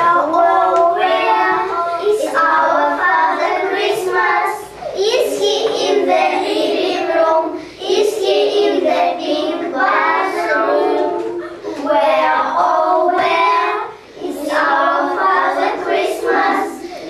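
Children singing a song together in phrases, with brief pauses for breath between lines.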